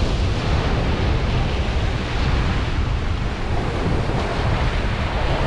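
Steady sea surf washing against a rocky shore, with wind buffeting the microphone in a low, fluttering rumble.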